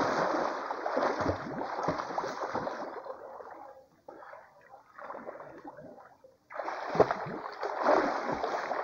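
A person splashing and swimming in a shallow creek. Heavy splashing comes first, then quieter sloshing through the middle, then loud splashing again about two-thirds of the way through, with one sharp slap of water.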